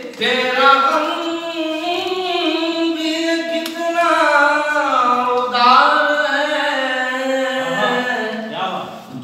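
A solo voice singing a poem as a song, in long held notes that glide slowly up and down.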